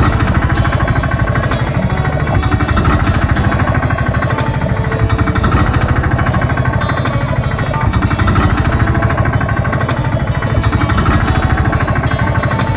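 A loud machine running with a rapid, even pulse, like an engine or a hammering tool. It cuts off abruptly at the very end.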